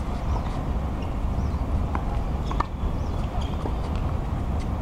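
Tennis ball strikes on a Prince EXO White 100 racket and ball bounces on a hard court: a few sharp pops, about two seconds in, again just after, and near the end, over a steady low rumble.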